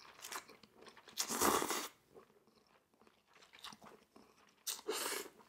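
A person slurping Korean potato noodles from a bowl held at the lips, with soft chewing between. There are two loud sucking draws, one about a second in and one near the end.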